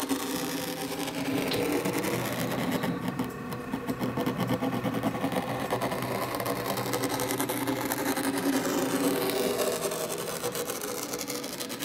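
Sandscript automatic sand drawing machine running, its motor drive moving the magnet arm under the sand plate: a steady mechanical hum, going pretty fast.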